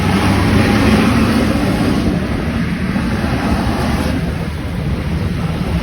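Road vehicle passing close by: a loud, steady rush of engine and tyre noise that eases slightly toward the end.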